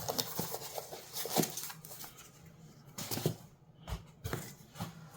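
Handling of a cardboard box and its packing: scattered light knocks, taps and rustles, with a few sharper knocks about a second and a half in and again from three seconds on.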